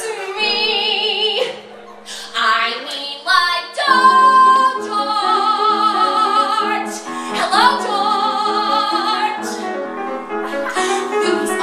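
A woman singing long, operatic-style held notes with wide vibrato, with an upward swoop about three-quarters of the way through, over a grand piano playing repeated chords.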